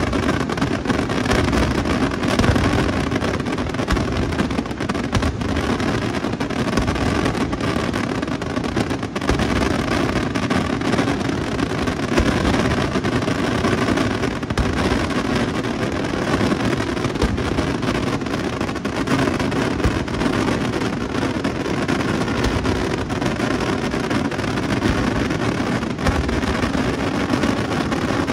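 Daytime fireworks barrage: a dense, unbroken crackling and banging that holds an even level, with no single standout blast.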